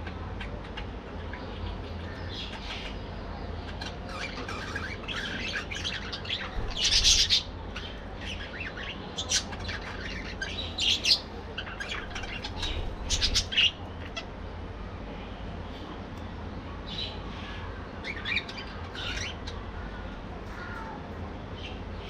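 A flock of budgerigars chirping and chattering, with bursts of louder, sharper calls through the middle and a lighter patch of chirps near the end.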